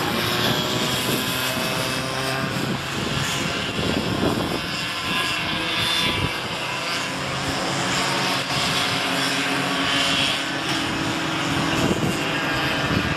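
Several cadet go-kart two-stroke engines racing past, their whines rising and falling in pitch as the karts accelerate, brake and pass.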